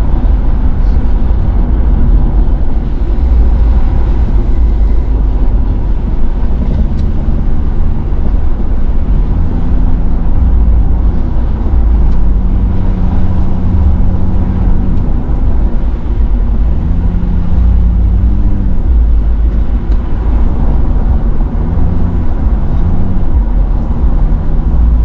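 Pickup truck driving, heard from inside the cab: a steady low rumble of engine and tyres on a dirt road, with the engine note rising and falling several times as the revs change.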